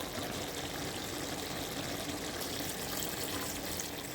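Water running from a kitchen tap in a steady stream.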